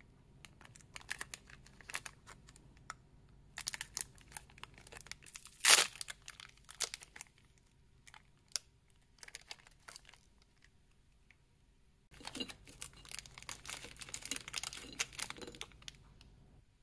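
Foil-lined plastic wrapper of a Glico Bisco biscuit pack crinkling as it is handled and torn open, with one sharp loud tear about six seconds in. Near the end the wrapper crinkles again in a dense run lasting several seconds.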